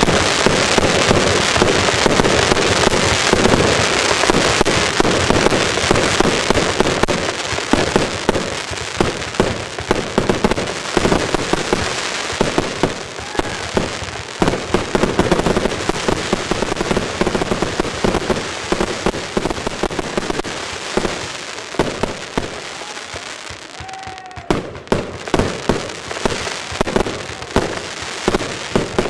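Evolution Fireworks Evo Bomber compound firework cake firing: a dense, continuous run of launches, bursts and crackle that thins out a few seconds before the end. It then picks up again with a string of separate bangs.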